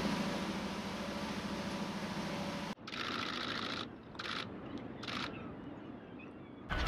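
Ship's diesel engine droning steadily, heard from inside the cabin, for about three seconds. An abrupt cut then leads to open-water wind noise with a few short hissing bursts.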